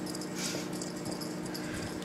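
A cat growling low and steadily at a teasing toy, with a short breathy hiss about half a second in.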